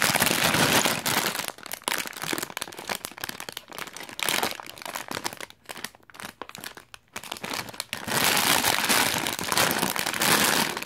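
Clear plastic bags of LEGO pieces crinkling as they are handled and shifted. The crinkling is loudest for about the first second and a half and again for the last few seconds, with quieter crackles between.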